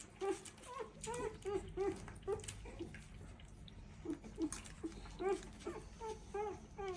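A dog whimpering in a string of short, high-pitched whines, about three a second, pausing briefly midway and then carrying on.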